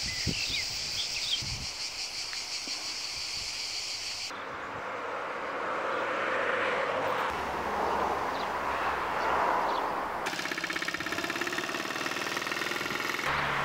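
Outdoor ambience with a high steady buzz and a few bird chirps. From about ten seconds in, the single-cylinder engine of a two-wheel walking tractor towing a trailer runs with a fast, even knock as it goes by.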